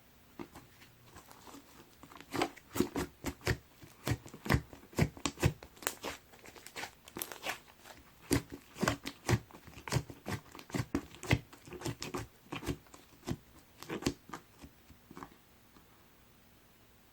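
Light green slime being squished and pressed by hand, giving sharp, irregular pops and crackles several times a second; they stop near the end.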